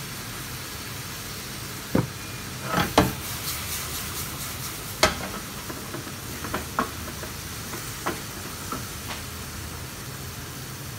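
Food frying in a hot pan on a gas burner, with sharp metal clanks and taps of a utensil against the pan, the loudest about three and five seconds in, then lighter taps. A steady low hum underneath.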